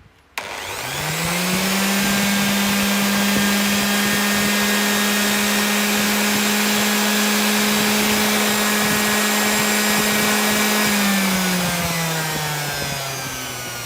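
Ryobi electric sander switched on and run with no load: the motor starts about half a second in, whines up to speed within a second, runs at a steady pitch, then is switched off and winds down with a falling pitch near the end. A decibel meter puts its peak at 98 dB.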